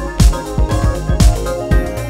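Electronic background music with a steady kick-drum beat, about two beats a second, over held chords.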